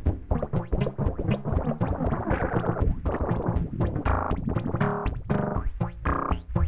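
Behringer Neutron analog synthesizer playing a busy sequence of short pitched notes, with quick clicky attacks throughout.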